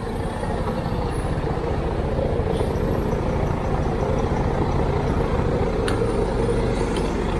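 Rusi B-Max 175 scooter's engine running steadily at low revs, heard from the rider's seat, with one sharp click about six seconds in.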